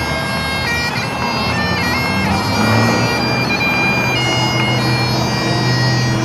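Highland bagpipes playing a tune, the melody stepping between held notes over steady low drones.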